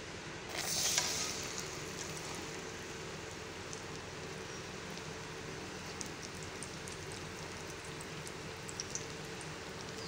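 A batter-coated piece of banana flower goes into hot mustard oil in a steel wok: a burst of sizzling about half a second in, then steady frying with occasional small pops.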